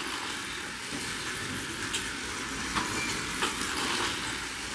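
Battery-powered toy race cars running around a plastic track: a steady running noise with a few faint clicks.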